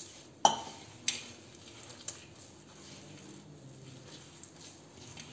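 A steel tumbler knocking twice against metal, the first knock sharp and ringing, then a faint tick, followed by soft rustling of dough being kneaded by hand in a brass plate.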